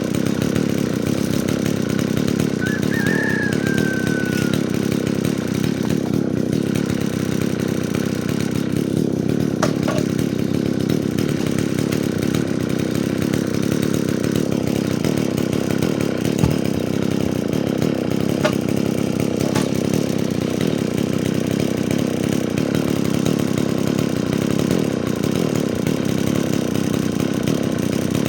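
Stihl chainsaw running steadily at a constant pitch while sawing firewood, with a few brief clicks and knocks along the way.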